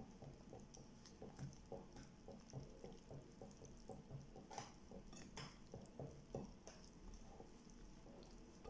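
Wire whisk beating thick flour-and-milk crepe batter in a glass bowl: faint, rhythmic stirring strokes, with a few sharp clinks of the whisk against the glass around the middle.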